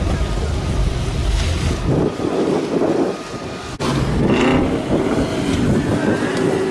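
Car engines and exhausts rumbling, with wind buffeting the microphone; a single sharp crack a little past the middle.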